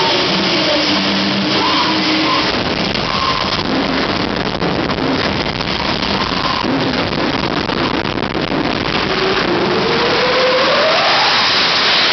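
Jet engine of a jet-powered golf cart running, a loud steady rushing roar, with a whining tone that rises in pitch near the end.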